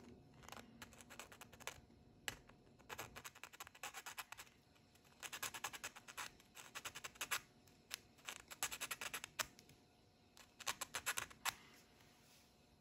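A small needle file scraping in quick back-and-forth strokes through the grille slots of a 1/64 diecast model car part, in several bursts with short pauses between them.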